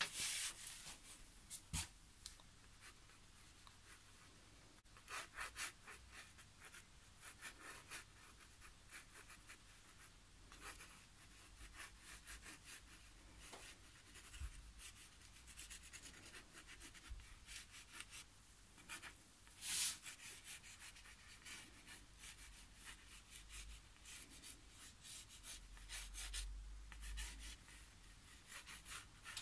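Parker Vector pen scratching across watercolour paper in quick, short sketching strokes. The faint scratchy bursts come and go, with one louder stroke about two-thirds of the way through.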